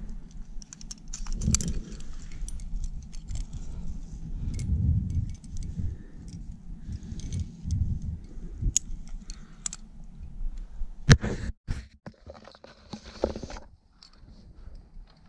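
Metal climbing gear (carabiners and protection racked on a harness) jangling and clinking as the climber moves, over a low rumble, with a sharp click about eleven seconds in.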